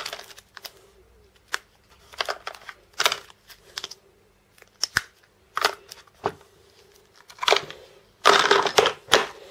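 Router bits and their small cases being handled and sorted: scattered clicks and knocks, then a burst of crinkling, rustling packaging near the end as a new bit is taken out.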